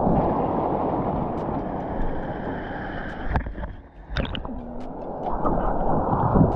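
Stream water rushing and gurgling, heard muffled, with a short lull and a few sharp clicks about four seconds in.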